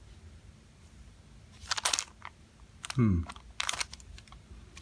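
Two short crinkles of plastic packaging being handled, with a brief vocal sound between them.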